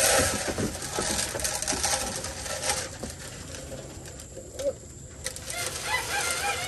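Dry feed poured from a scoop into a goat feeder, a rattling hiss loudest over the first few seconds, with goats jostling at it. Chickens make soft cooing calls, clearest near the end.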